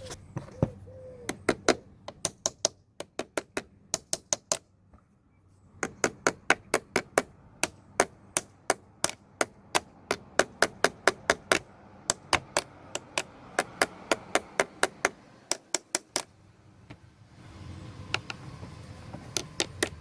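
Ratchet wrench clicking in runs of sharp, even clicks, about four a second, with short pauses between runs, as the car battery's hold-down and terminal fasteners are tightened.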